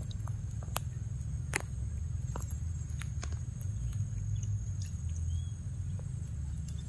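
Baby macaque sipping and lapping water from a muddy puddle: small sharp wet clicks, roughly one a second, over a steady low rumble.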